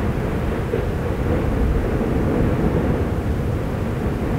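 Fagradalsfjall volcano erupting: a steady low rumbling roar from the active crater, with no distinct bangs.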